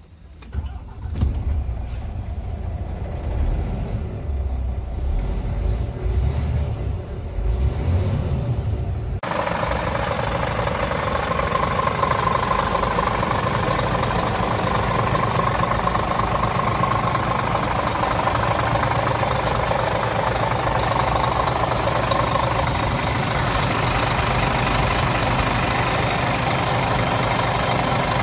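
Scania R tractor unit's diesel engine starting about a second in, then idling, heard from inside the cab. About nine seconds in the sound switches to the same engine idling steadily outside the truck, fuller and a little louder.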